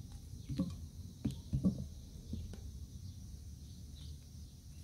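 About half a dozen soft knocks and taps, the loudest in the first two seconds, as a knife cuts button mushrooms and the slices drop into a metal pan, over a low steady rumble of outdoor background.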